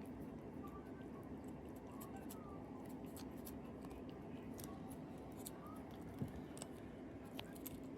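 Faint, irregular crinkling and clicking of a package or its wrapping being handled and opened, over a steady low room hum.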